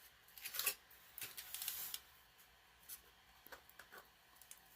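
Cardboard packaging being handled and opened: several short rustles and scrapes, the longest a little after one second in.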